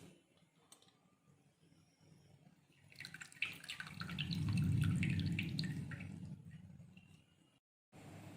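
Half a lemon squeezed by hand into a glass of ginger tea, its juice dripping and trickling into the tea with small wet crackles. The sound starts about three seconds in, is loudest around the middle, and fades out before the end.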